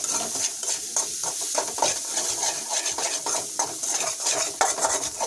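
Metal spatula stirring and scraping a thick masala paste frying in oil in a metal kadai: a rapid series of scrapes against the pan over a steady sizzle.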